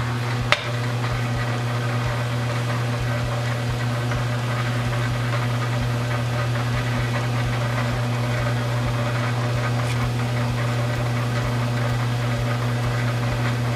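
South Bend Heavy 10 metal lathe running steadily at its slowest spindle speed, a constant low motor hum. There is a single click about half a second in.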